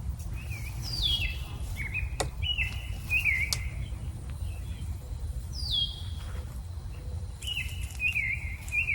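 Wild birds calling outdoors: short chirps that slide downward in pitch, several in quick succession, over a steady low background rumble.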